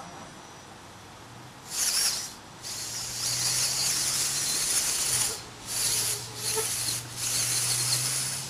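Six-wheel-drive robot's VEX motors and wheels running in spurts across brick paving: a hissing whir that starts and stops about five times, over a steady low hum.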